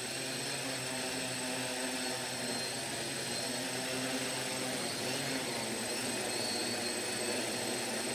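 Tarot 680 quadcopter's four motors and propellers running in low hover, a steady buzzing whir of several tones whose pitch wavers slightly.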